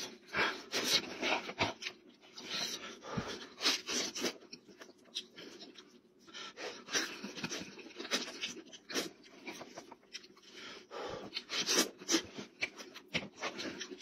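Close-up eating sounds: meat torn by hand from a cooked sheep's head and chewed with the mouth open, giving irregular wet smacks and clicks.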